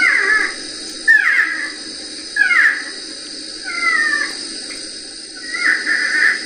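A recorded wild animal cry from the forest: a call that falls in pitch, repeated about five times, roughly once every second and a half, over a steady recording hiss.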